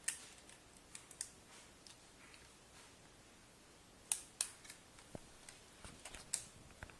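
Plastic toy car parts clicking and snapping into place by hand: a few sharp clicks, two of them close together about four seconds in.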